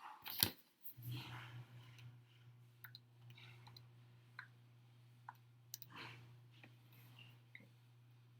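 Faint, scattered short clicks and taps over a low steady hum that starts about a second in.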